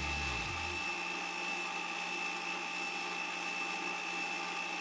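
Electronic parking brake motor on a rebuilt rear brake caliper running steadily on bench power, a small electric motor's even whine with a high hiss. A low hum under it drops away about half a second in.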